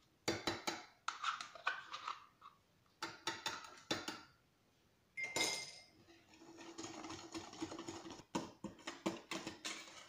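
A spoon scraping yogurt out of a plastic cup and tapping against a stainless steel mixing bowl of batter, making a run of small clicks and clinks, with one brighter ringing clink about halfway through.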